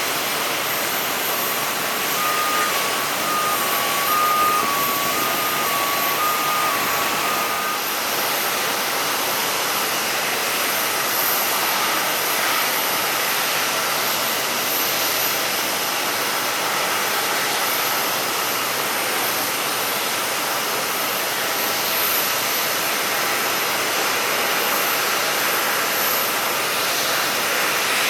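Airliner jet engines running on the apron: a steady rushing noise with a thin high whine, even in level throughout. For the first several seconds a faint string of short alternating beeps sits above it.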